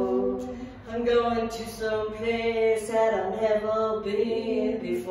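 A woman singing a slow song in long held notes, accompanying herself on an acoustic guitar.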